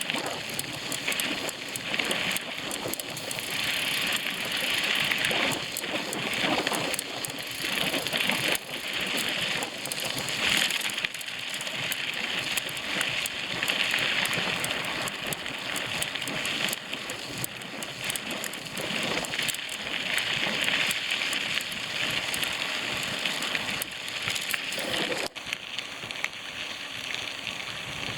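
Bicycle rolling along a dirt trail: a steady crackling rush of tyre noise that swells and fades every few seconds.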